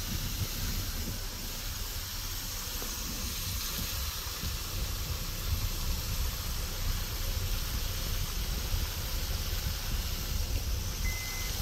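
Steady hiss of a large fountain's water jet and spray falling back into its basin, with a low, uneven rumble underneath.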